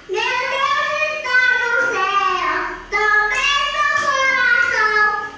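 A three-year-old boy singing, holding long notes that slide up and down in pitch, in two phrases with a short break about three seconds in.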